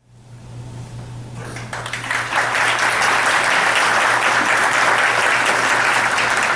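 Audience applauding, fading in and building over the first two seconds, then steady, with a steady low hum underneath.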